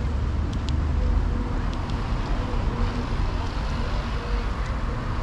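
Road traffic: a steady low vehicle rumble with a faint engine hum and a few light high ticks.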